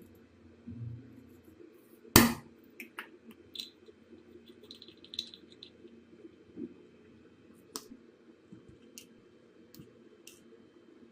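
Small objects being handled: scattered light clicks and taps, with one sharp knock about two seconds in.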